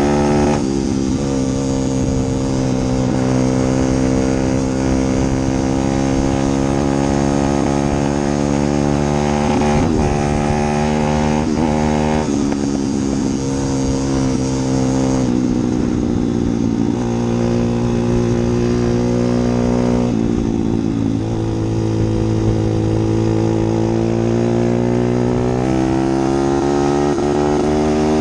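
An engine running steadily, its pitch gliding slowly and then shifting abruptly several times.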